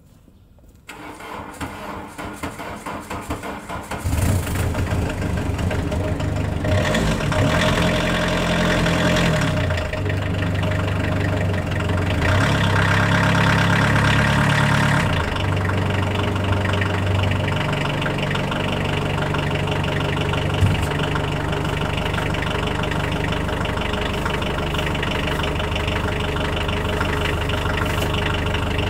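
1985 Volkswagen Jetta's 1.6-litre naturally aspirated diesel engine cold-starting at −22 °C after two weeks standing: the starter cranks for about three seconds, the engine catches about four seconds in, runs faster twice, then settles into a steady idle.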